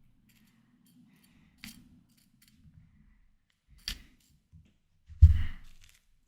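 Close-miked mouth sounds of eating ripe watermelon: two sharp crisp clicks, then a louder, longer bite and chew about five seconds in.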